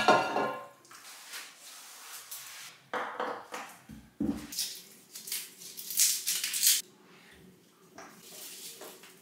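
Kitchen prep sounds: a loud clatter at the start as raw lamb ribs are tipped from a bowl into a pot, then scattered knife taps and scrapes on a worktop while garlic and ginger are peeled and cut.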